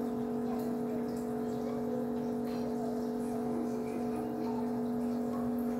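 Steady hum of a motor or appliance, holding a few even tones, with a few faint light clicks.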